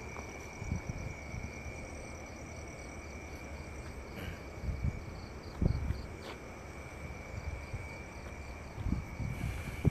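Insects trilling steadily: one unbroken high tone with a faint, faster pulsing chirp above it. A few soft low thuds from walking sound through it.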